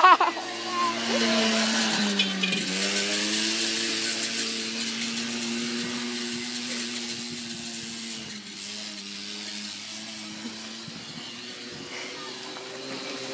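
Small motor running steadily with a droning hum that dips in pitch about two seconds in, then holds and slowly gets quieter.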